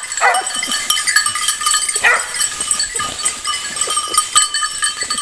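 Bells on a pack of scent hounds jingling steadily as the dogs work a scent through the undergrowth, with a couple of short falling cries from a hound.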